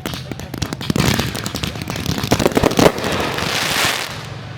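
Fireworks going off: a quick string of sharp cracks that crowds together about a second in and is loudest near three seconds, followed by a second or so of dense crackling hiss that fades out.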